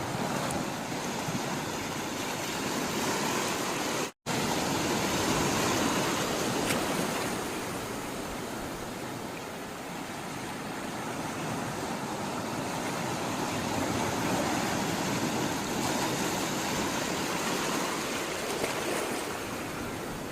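Sea water rushing and washing in a steady hiss that swells and eases slowly, broken by a sudden split-second dropout to silence about four seconds in.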